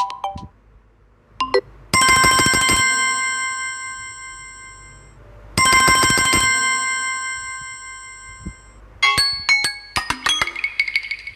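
Samsung Galaxy M31 ringtones playing. A short melody ends, then a bell-like ring sounds twice, about three and a half seconds apart; each starts with a quick trill and then rings on as it fades. About nine seconds in, a fast, high melody of quick notes begins.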